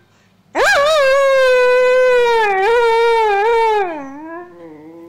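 A whippet howling: one long howl that swoops up about half a second in, holds a wavering pitch, then slides down and fades near the end.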